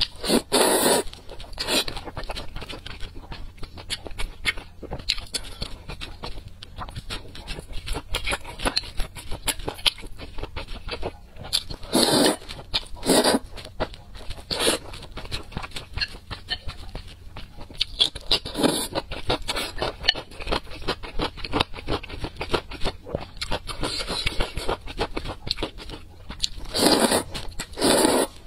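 A person eating noodles in dark sauce: loud wet slurps of noodles several times, with steady chewing and mouth clicks in between.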